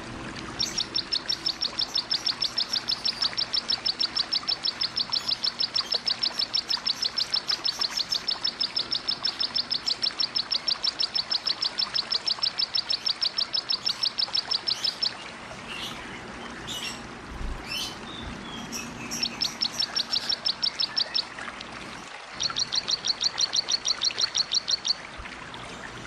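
A small cici-type songbird giving a 'tembakan' burst: a long, fast run of identical high notes, about eight a second, lasting some fifteen seconds. A few scattered calls follow, then two shorter runs. A steady hiss of running water sits behind.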